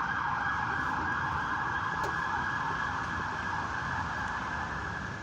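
Loud, steady, narrow hiss coming from the bus while its engine runs, the unexplained 'weird sound' the bus makes only with the engine on; it cuts off abruptly near the end.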